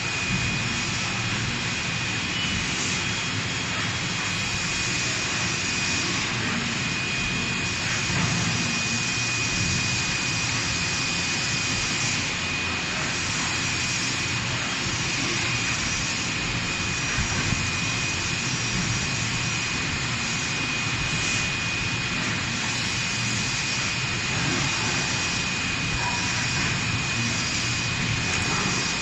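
Plastic injection moulding machine running while moulding rectangular container lids: a steady mechanical hum and hiss with a constant high whine, and a few faint knocks as it cycles.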